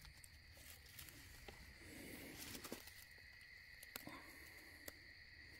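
Near silence: a faint, steady high trill of night insects, with a few soft clicks.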